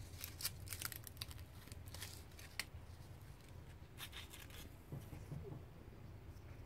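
Leaves and dry, papery boll bracts of a potted cotton plant rustling and crinkling under a hand, as short crackles through the first few seconds and again about four seconds in.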